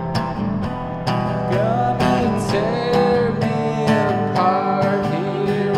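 Country-style acoustic music with plucked guitar, playing steadily.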